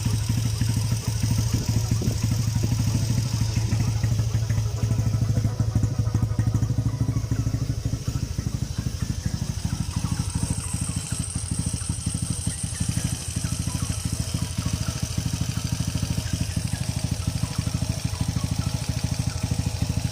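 Rebuilt Motorstar Zest X single-cylinder four-stroke motorcycle engine idling steadily on its first run after reassembly, a little quieter from about eight seconds in. It has a valve tick because the tappets have not yet been adjusted.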